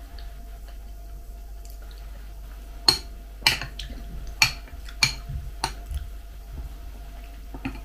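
Metal spoon clinking against a glass bowl while stirring and scooping cereal flakes in milk: a series of sharp clinks, about one every half second, starting about three seconds in, with a last one near the end.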